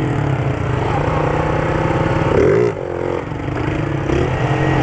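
Small single-cylinder motorcycle engines running at road speed, with one bike close under the microphone and a second alongside. About two and a half seconds in, the revs rise and fall quickly, and the sound then drops back a little.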